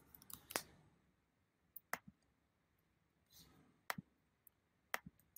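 A handful of separate sharp clicks from a computer's keys or mouse buttons, roughly a second apart, against near silence.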